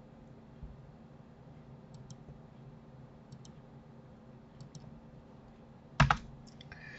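Computer mouse clicking: a few soft double clicks about a second apart as knife-tool cut points are placed on a 3D mesh, then a much louder sharp double knock about six seconds in.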